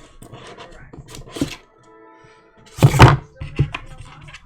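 Cardboard trading-card box and packs being handled and opened on a table: light rustling, then two sharp thuds about three seconds in, the first the loudest. A brief musical tone sounds just before the thuds.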